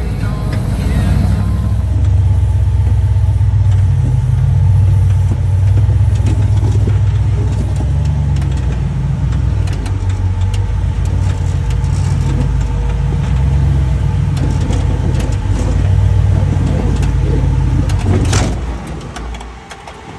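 Vehicle engine running with a steady low rumble. About 18 seconds in there is a sharp knock, and the rumble falls away.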